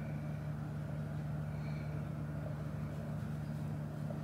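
A steady low hum with no change in pitch or level, and nothing else clearly heard.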